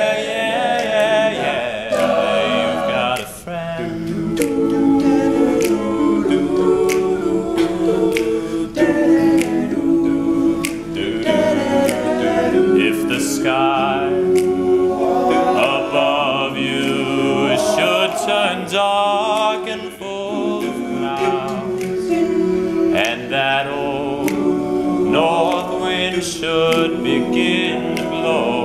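Male a cappella group singing in close harmony, backing voices holding chords under a lead singer.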